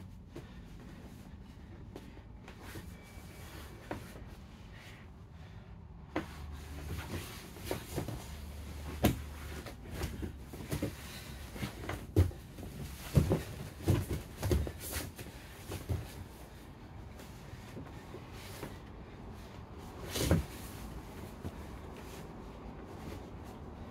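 Two grapplers scrambling on vinyl-covered foam mats: irregular thumps and scuffs of bodies and limbs hitting the mats, busiest in the middle stretch, with one more heavy thump near the end, over a low steady hum.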